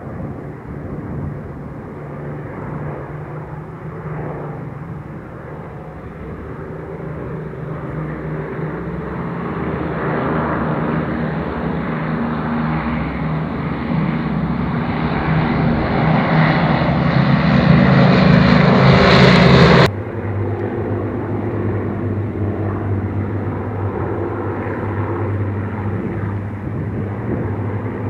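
Avro Lancaster bomber's four Merlin piston engines droning as it flies low overhead, growing steadily louder to a peak. About two-thirds of the way through the sound breaks off suddenly to a quieter, steady, more distant propeller drone.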